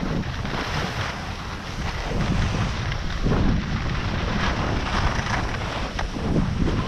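Wind buffeting the camera microphone as the skier moves downhill, with a steady hiss of skis sliding over groomed snow; the rumble swells a few times, around the middle and near the end.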